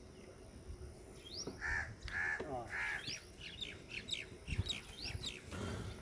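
A crow cawing three times in quick succession about two seconds in. Small birds give rapid, high chirps through the second half.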